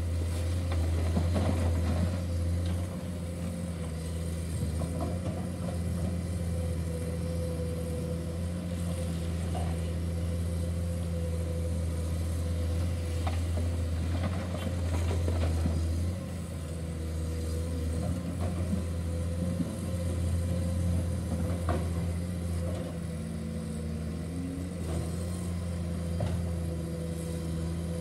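Komatsu crawler excavator's diesel engine running steadily under load, with a thin higher whine over the drone. Scattered knocks and clatter come as rock and soil tip from its bucket into a dump truck's steel bed.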